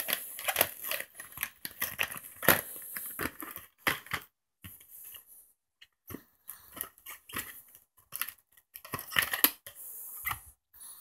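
Plastic VHS clamshell cases being handled and moved about: irregular clacks, clicks and plastic rustling, busiest in the first few seconds and again near the end.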